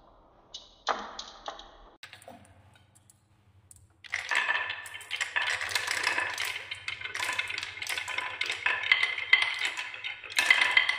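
Marbles rolling along a wooden marble-run track with a wavy carved groove, knocking against the wood and each other. A few single clicks come about a second in, then from about four seconds on a crowd of marbles makes a dense, continuous clatter.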